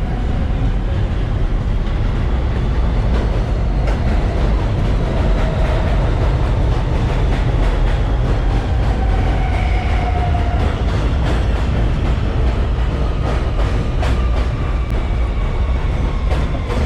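New York City subway train at the elevated platform: a loud steady rumble of wheels and motors, with a faint whine that slowly falls in pitch and a few sharp clacks near the end.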